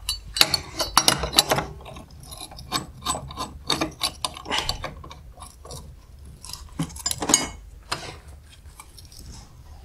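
Wrench turning the screw of a bearing puller fitted to a Buran snowmobile suspension bogie tube held in a vise: a run of irregular metal clicks and scraping as the screw is tightened to draw the bearing out.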